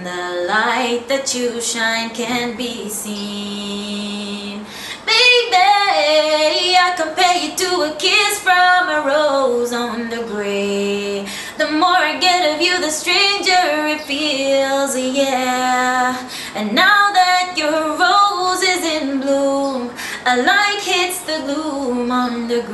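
A woman singing solo and unaccompanied, a slow melody with several long held notes.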